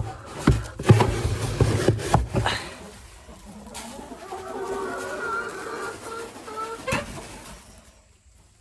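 A chicken calling with a drawn-out, wavering call in the middle, after a few knocks and clatter.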